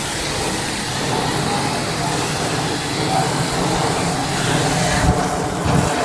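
Water jet from a hose spray nozzle hissing steadily as it blasts dirt out of an air conditioner's aluminium condenser coil fins, with the water splattering off the coil.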